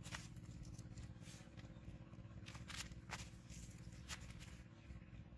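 Faint, scattered rustles and clicks as a small freshly caught fish is handled and unhooked on a sack, over a low steady hum.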